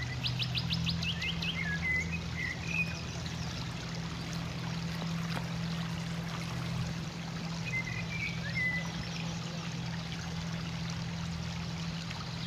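Outdoor ambience: small birds chirping, with a quick run of about eight short chirps near the start and a few more calls later, over a steady hiss and a low, even hum.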